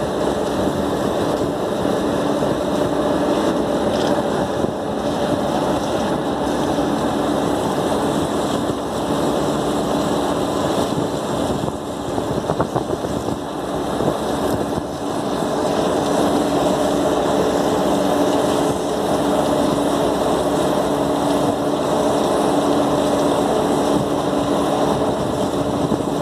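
Steady drone of a running SKM chiller plant, its fans and compressors holding several steady tones. Briefly quieter, with a few clicks, about twelve seconds in.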